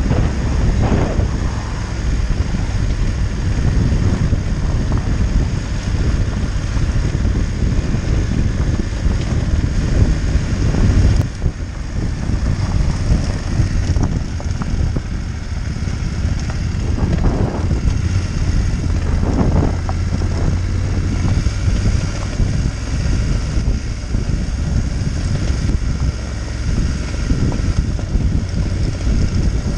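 Motorcycle riding along a gravel track: the engine runs steadily under a constant rush of wind on the microphone, with a brief break about eleven seconds in.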